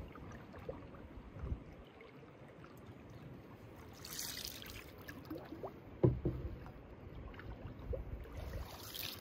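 Wooden canoe paddle strokes in calm water: a swishing splash as the blade pulls through about four seconds in and again near the end, over soft lapping. A dull knock about six seconds in is the loudest sound.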